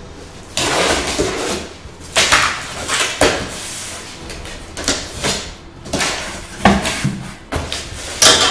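A large cardboard box being opened by hand: packing tape cut with a small blade, then cardboard flaps pulled open, giving a string of scraping, rustling bursts and a few sharp knocks.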